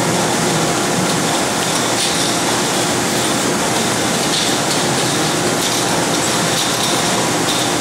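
Steady, loud machinery noise with a few faint clicks on top.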